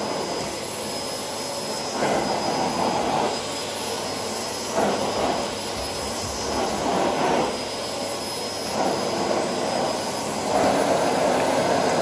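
Philips XD3110/09 bagged canister vacuum cleaner running at its highest power setting, its floor nozzle pushed back and forth over a rug. The steady motor and airflow noise swells about every two seconds with each stroke of the nozzle.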